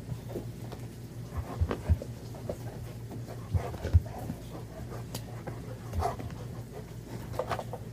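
Chocolate Labrador puppy panting and scuffling in rough play, with scattered thumps and knocks of bodies on the wooden floor.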